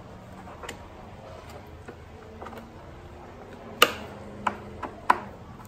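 Light clicks and taps of a hex key and screws against the plastic and metal of a motorcycle armrest mount as the 4 mm screws are turned. A few faint ticks come first, then a cluster of sharper clicks from about four seconds in.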